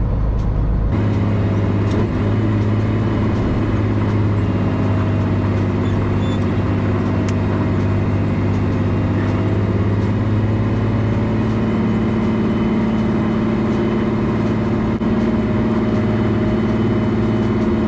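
Pickup truck engine running steadily as the truck rolls slowly at low speed, its note shifting slightly about ten seconds in.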